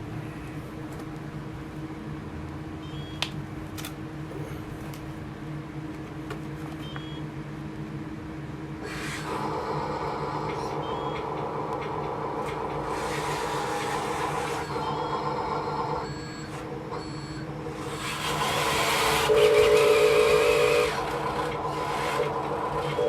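Radio-controlled hydraulic construction machine working: a steady electric hum, with the hydraulic pump whining louder from about a third of the way in as the machine moves under load. It rises and falls, briefly drops back, and is loudest with a buzzing tone near the end.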